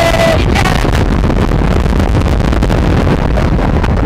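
Rocky Mountain Construction wooden roller coaster train running at speed down a drop, a loud steady rush of wind buffeting the microphone over the rumble and clatter of the wheels on the track.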